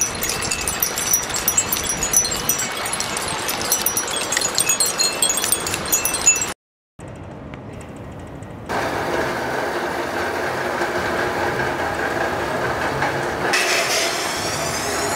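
Chimes tinkling over a steady rushing noise. About six and a half seconds in the sound cuts out to silence for a moment. From about nine seconds on there is a steady drone of several held tones, with a rising sweep near the end.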